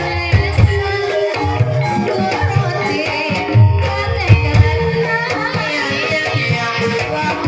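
Banyumasan gamelan music playing for an ebeg dance: hand drums beat a steady pattern under ringing metallophone tones, with a singing voice over them.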